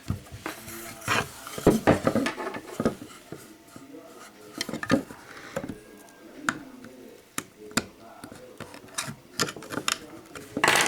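Irregular clicks, taps and scraping of a small plastic computer-speaker housing and its parts being handled while it is taken apart.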